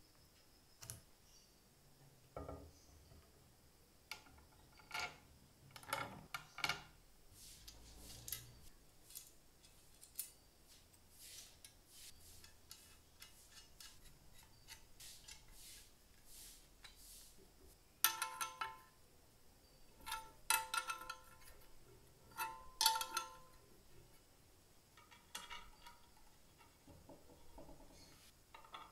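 Small metal parts of an antique circular tile cutter being handled and fitted together by hand: light clicks and clinks of bolts, washers, nuts and fittings, metal on metal. Three louder, ringing clinks come in the second half.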